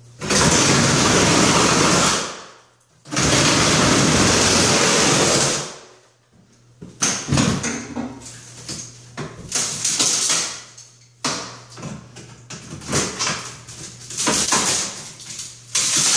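Reciprocating saw cutting into a fiberglass tub surround in two loud runs of about two seconds each, with a short pause between. After that come irregular knocks and rattles as the cut surround is worked by hand.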